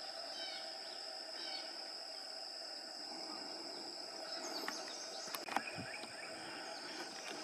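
Outdoor ambience in rural woods: a steady high insect drone with a few short bird chirps in the first second or two. A couple of sharp clicks or knocks come about five and a half seconds in.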